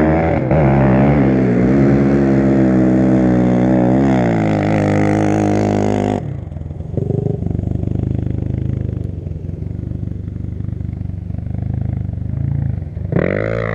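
Quad (ATV) engine running and revving, its pitch wavering up and down. About six seconds in the sound drops suddenly to a lower, steadier running, with a short rise in pitch near the end.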